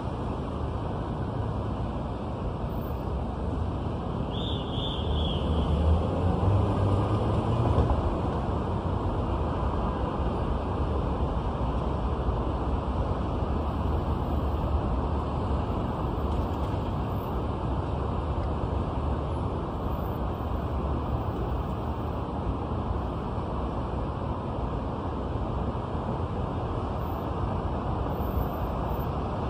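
City street traffic heard from above: a steady rumble of passing cars, swelling louder for a few seconds about five seconds in. A brief high squeal sounds just before that swell.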